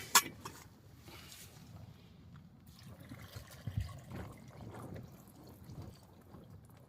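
Two sharp knocks, then quiet sloshing and trickling of water as ingredients go into a cooking pot.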